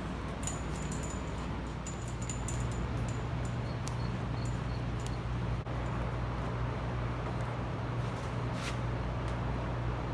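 A steady low hum that grows a little stronger about two seconds in, with a few faint ticks and light handling noises over it.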